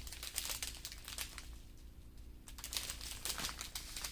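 Small plastic bags of diamond painting drills crinkling as they are handled, a run of short crackles and clicks that is busiest in the first second and a half and picks up again about three seconds in.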